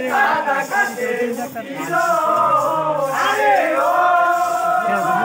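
Men's voices singing a Bengali jari folk song, several at once in a chant-like chorus with long held notes.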